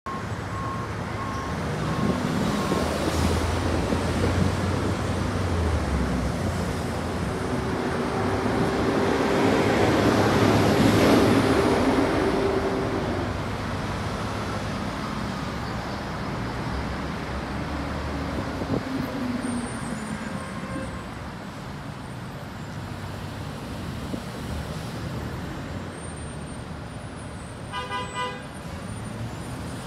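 Road traffic at a roadside stop: cars and buses idling and moving past, getting louder for a few seconds in the middle as a vehicle passes close. A short high-pitched tone sounds near the end.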